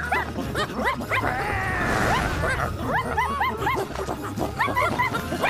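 Many cartoon puppies yapping and barking in quick, overlapping short calls, over background music.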